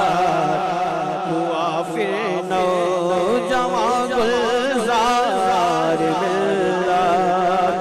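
Interlude of a devotional manqabat between sung verses: a wavering, ornamented melody over a steady held drone.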